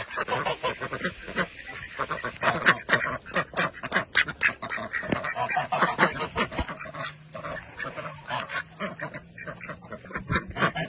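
A flock of domestic ducks quacking over one another in a dense, continuous chorus of short calls. The keepers take it for the ducks clamouring for their dinner.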